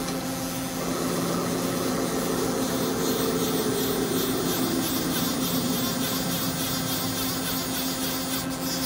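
Mori Seiki ZL-25 CNC lathe with its spindle turning at about 490 rpm, giving a steady hum, while the tool takes a very light facing pass across the end of the spinning part. The cutting noise sets in about a second in and slowly falls in pitch over the next few seconds.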